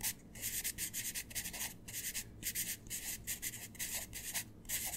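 Pencil scratching across paper in quick, uneven writing strokes with short breaks between them.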